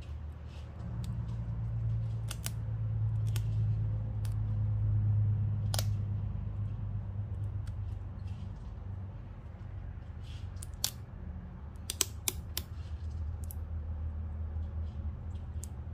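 Vinyl tape being handled and pressed onto a wheel's rim lip by fingers and fingernails: scattered sharp clicks and ticks, a quick cluster of them about three quarters of the way through, over a low steady hum.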